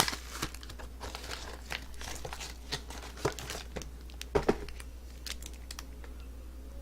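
A plastic granola bar wrapper being torn open and crinkled: a string of sharp crackles and rustles, busiest in the first four and a half seconds, then thinning out.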